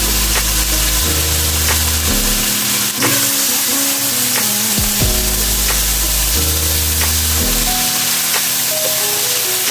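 Food sizzling and frying in a pan, with background music of held bass notes and a steady ticking beat over it.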